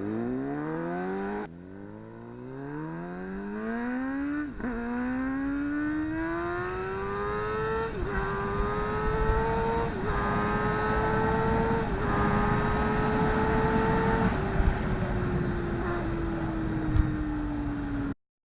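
2014 Suzuki GSX-R750's inline-four engine accelerating hard through the gears, its pitch climbing and dropping back at several upshifts. Then it eases off, falling in pitch as the bike slows, and cuts off suddenly near the end.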